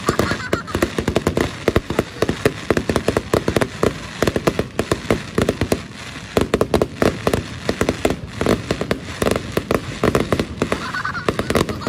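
Aerial fireworks shells bursting overhead in a dense, rapid crackle of many small sharp pops, with no break in the barrage.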